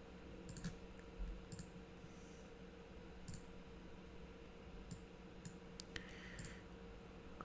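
Computer mouse clicking: scattered single clicks at irregular intervals, about eight to ten in all, over a faint steady hum.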